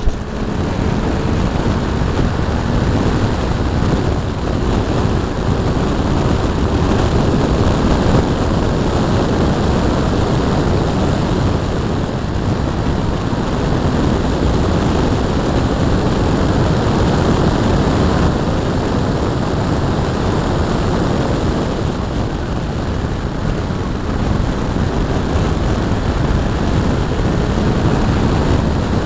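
Wind rushing over the microphone of a bumper-mounted camera on a BMW E30 325is at track speed, with the steady drone of the car's straight-six engine and road noise underneath. The noise eases briefly a couple of times.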